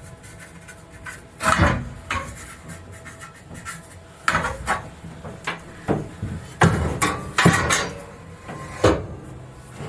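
Hand tear-down work on a boat interior: irregular knocks, clunks and scrapes as pieces are worked and pulled loose. A loud bang comes about a second and a half in, and a cluster of heavier bangs comes around seven seconds.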